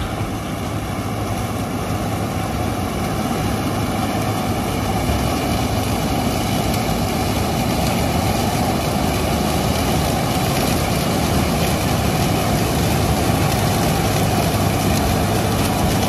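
ZMAJ 190 combine harvester running under load while harvesting corn: its diesel engine and threshing machinery make a steady dense drone, which grows louder over the first few seconds as it draws near.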